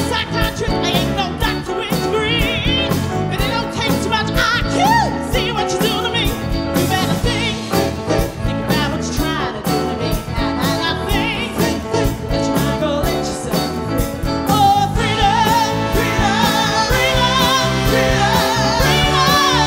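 Live soul band playing: a woman sings lead with vibrato over drums, electric guitar, bass and saxophones.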